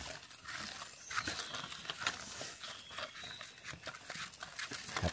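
Irregular crackling and rustling of dry forest leaf litter, footsteps and hands moving through it while mushrooms are picked.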